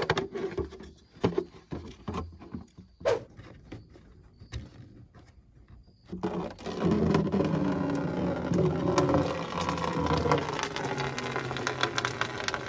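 A few light clicks and knocks as the radiator drain petcock is worked. Then, about six seconds in, coolant starts streaming out of the drain tube into a plastic gallon jug, a steady splashing fill.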